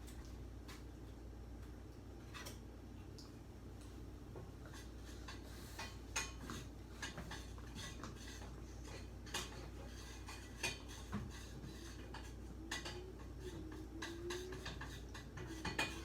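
A spoon stirring in a pot, clinking and scraping against the side in irregular light clicks that come more often from about six seconds in.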